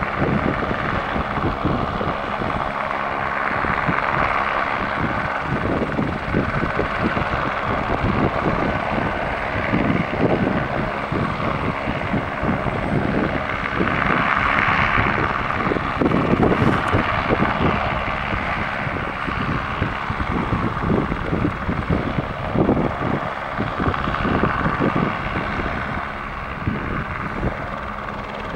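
Airbus AS350 helicopter sitting on snow with its rotor turning, running steadily with a rapid rotor beat over the engine's sound.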